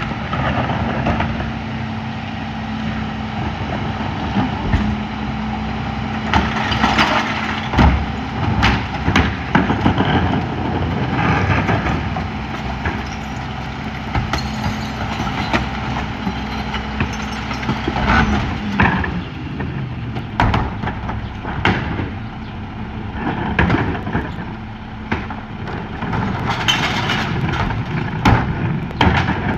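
Mack LE McNeilus rear loader garbage truck's diesel engine revs up and holds at a steady high speed to drive the packer, then drops back to idle about two-thirds of the way through. Recycling carts bang against the hopper over it, and recyclables clatter in as they are tipped.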